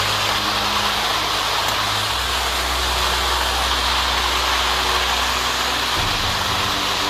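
Loud, steady din of a packed festival street crowd, with a low hum underneath that changes pitch about two seconds in and again near the end.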